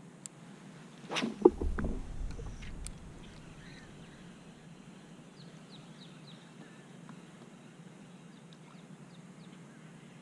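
A sudden knock and clatter about a second and a half in, with a low thud lasting about a second, followed later by faint, short bird chirps.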